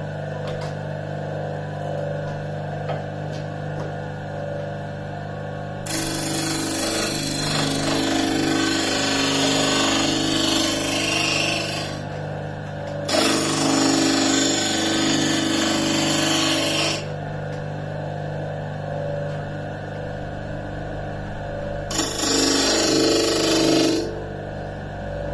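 Electric disc sander running with a steady motor hum, and a piece of wood pressed against the spinning disc three times, each a loud gritty sanding stretch: a long one about a quarter of the way in, a second just after, and a short one near the end.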